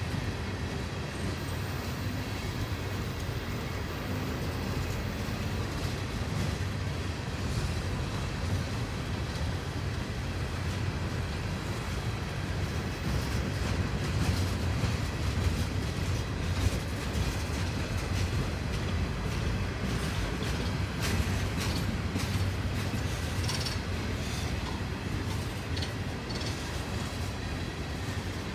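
CSX freight train rolling past, a steady low rumble of freight cars with wheels clacking over rail joints, busier for a stretch near the middle.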